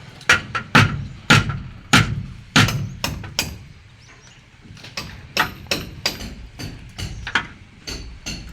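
Mason's hammer striking a steel chisel against masonry: sharp blows about two a second, then a pause, then lighter, more scattered taps from about five seconds in.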